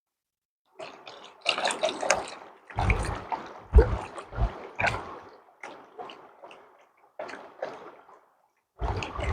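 Water splashing and gurgling in irregular bursts, with a few low thumps a few seconds in.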